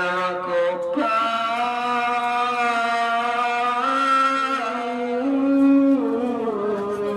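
Slow, chant-like singing in long held notes, stepping to a new pitch every second or few.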